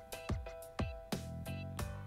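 Background music with a steady beat and held tones.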